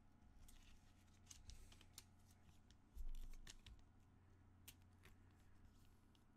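Faint clicks and rustles of trading cards being handled and slid into clear plastic sleeves, with a soft thump about three seconds in.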